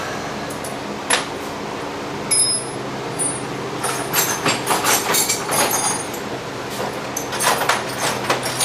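Small metal hand tools clinking and rattling in irregular clusters, some clinks ringing briefly, as sockets and keys are handled and tried on the gym's bolts. A steady low hum runs underneath.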